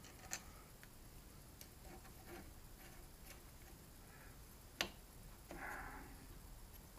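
Small metallic clicks and light handling of steel parts as a hex key turns a cap screw, with one sharper click a little before five seconds in and a brief scrape just after.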